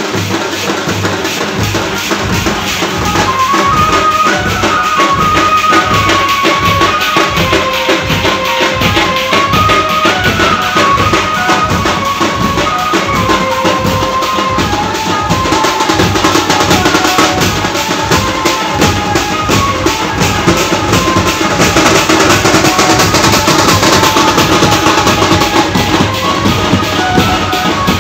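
A street band playing loud festival music: large drums beating a fast, dense rhythm under a keyboard melody. The deep drum beats fill in about a second and a half in.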